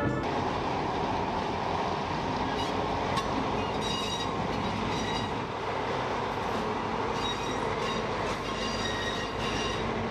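Diesel-hauled train running over the track: a steady rumble and rattle of wheels on rail, with a high wheel squeal that comes and goes several times.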